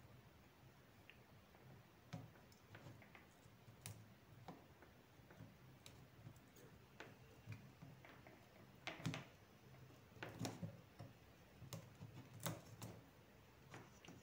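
Faint, irregular small clicks and taps of a soldering iron tip and desoldering wick working the pins of a small circuit board in a helping-hands clamp, with a few louder clicks in the second half.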